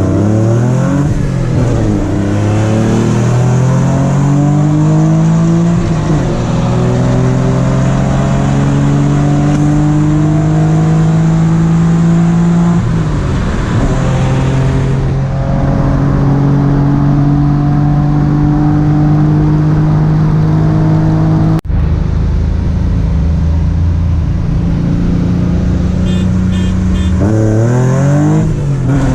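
Car engine pulling hard under full throttle in a roll race. Its note climbs slowly through long pulls and drops sharply at each upshift, about a second in, about halfway and again near the end. The sound cuts out abruptly for an instant about two-thirds of the way through.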